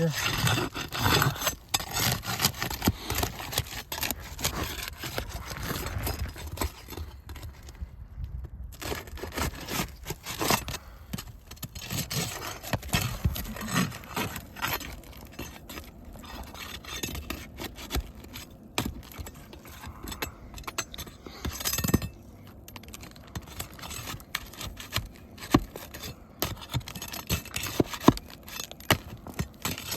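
An asphalt roof shingle being worked loose: irregular scraping, crackling and sharp clicks as the shingle and its sealed edges are pried, torn and broken free.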